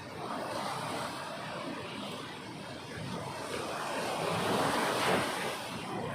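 Ocean waves washing onto a beach, a steady rush of surf that swells to a louder wash about five seconds in and then eases back.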